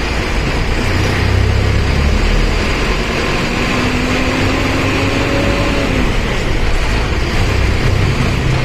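Mercedes-Benz OF1519 BlueTec 5 bus engine running with its cooling fan (ventoinha) rushing over a steady low rumble. A steady tone rises slightly about three seconds in and fades out about six seconds in.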